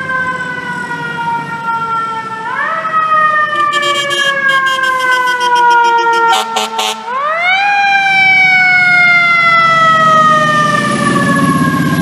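FDNY fire truck's mechanical siren, winding up quickly three times and slowly winding down after each, with a rapid pulsing high sound partway through. The truck's heavy diesel engine rumbles louder near the end as it comes close.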